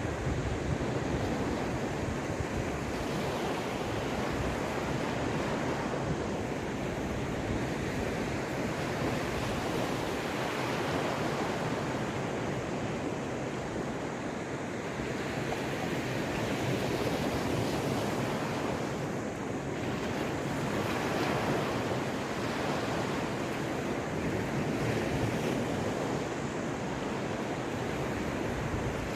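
Caspian Sea waves breaking and washing on the shore in a steady surf, swelling and easing every few seconds, with some wind on the microphone.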